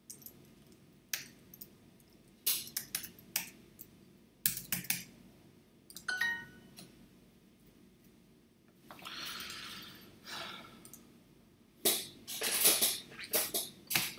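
Computer keyboard typing in short bursts of key clicks as an answer is typed, with a brief electronic chime about six seconds in as the answer is marked correct. A soft rustle follows, then a quick run of key clicks near the end.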